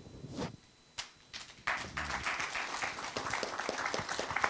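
Audience and panel applauding with hand claps, starting about a second and a half in and carrying on steadily.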